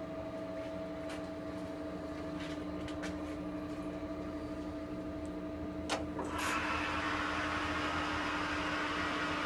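Boley 5LZ toolroom lathe running with a steady hum. About six seconds in, a selector lever clicks as it is shifted, and the machine's running noise becomes louder and fuller.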